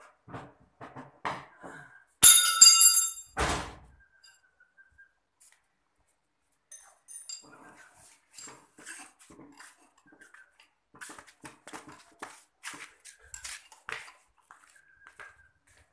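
A wrench clinking and scraping on a truck starter motor being worked on by hand, as scattered metallic clicks. About two seconds in there is a loud high-pitched squeal lasting about a second, then a single heavy clank.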